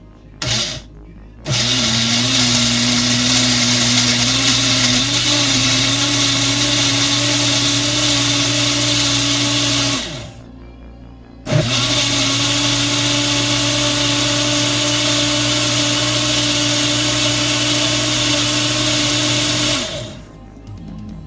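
Mainstays personal blender motor blending berries, green apple and kale: a short pulse, then a steady run of about eight seconds with its pitch rising a little, a brief stop, then a second run of about eight seconds.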